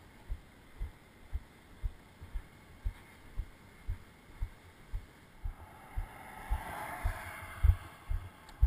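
Footsteps of a person walking, heard as dull thumps about twice a second, jolting a worn camera. From about halfway a soft rushing hiss swells up and fades near the end.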